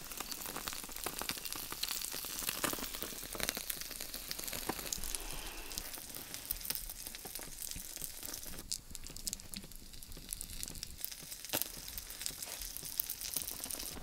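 A trench candle burning in a tin can, its flames crackling and hissing with many small, sharp pops.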